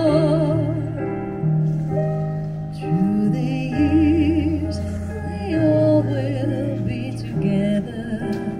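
Background music: a singing voice with vibrato over long held bass notes.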